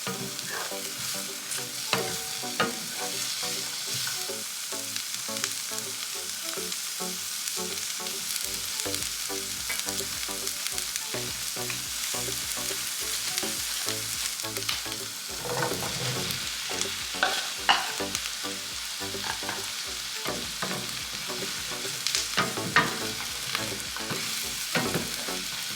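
Onions and mushrooms frying in butter in a pan, cooking down.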